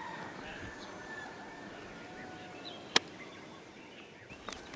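Faint outdoor ambience with distant bird calls, a few thin whistled notes in the first three seconds, and a single sharp click about three seconds in.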